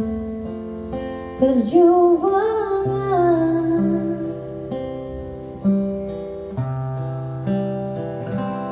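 A song: a voice singing in Indonesian over plucked and strummed acoustic guitar. The sung line comes in the first half, and the guitar carries on alone with a few fresh plucks after it.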